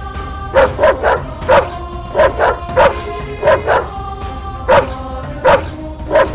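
A dog barking repeatedly in short, sharp barks, about a dozen of them and often in quick pairs, over background music with sustained tones.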